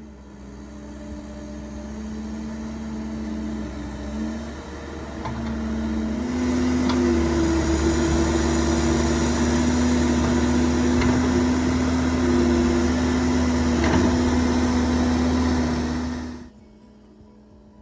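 Caterpillar 308 mini excavator's diesel engine running with a steady hum. About six seconds in it revs up a little, louder and slightly higher, with a couple of knocks, and the sound drops away near the end.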